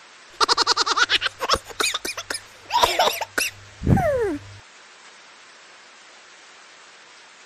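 A cartoon laughing sound effect added in editing: a quick string of high, squeaky chuckles, then a falling glide near the end, over a steady hiss.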